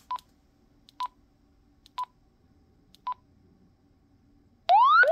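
KSUN UV-K5-type handheld radio giving four short beeps about a second apart as its keys are pressed. Near the end its alarm breaks in, a loud siren of quick rising sweeps, an alarm tone the radio also transmits.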